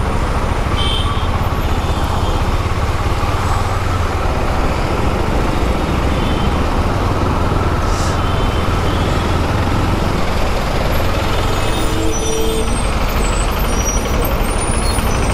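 Steady low rumble of slow, heavy city traffic heard from a moving motorcycle: diesel trucks and a bus close alongside, mixed with the KTM Duke 390's single-cylinder engine. A brief hiss comes about eight seconds in.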